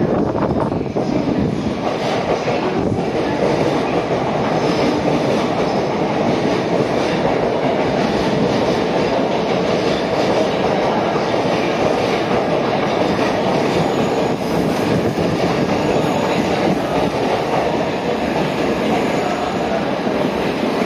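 Coupled E5 and E6 series Shinkansen train moving along the platform close by, a steady, unbroken running noise of wheels on rail and traction equipment.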